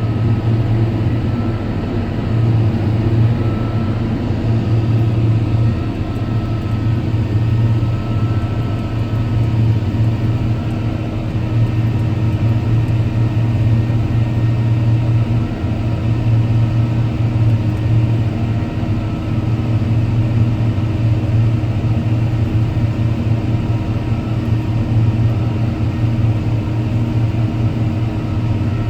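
Tractor engine running steadily at a constant speed with a low, even hum.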